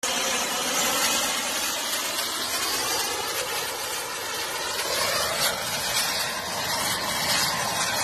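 Rocket motor of a remote-control model rocket built like a jet fighter, firing on a vertical launch: a steady rushing hiss.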